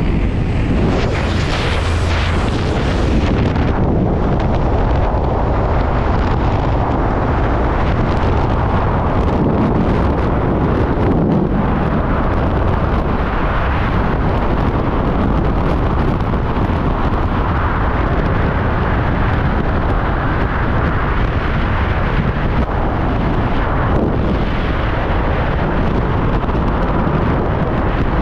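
Freefall wind rushing over a skydiver's helmet camera microphone: a loud, steady roar, hissier for the first three or four seconds before it settles.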